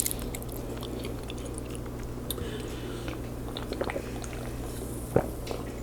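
Soft close-up chewing of a mouthful of lasagna, with scattered small wet mouth clicks, one a little louder about five seconds in. A steady low electrical hum runs underneath.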